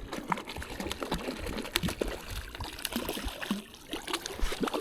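Water splashing and trickling in quick, irregular little splashes as a hooked rainbow trout is brought in at the surface.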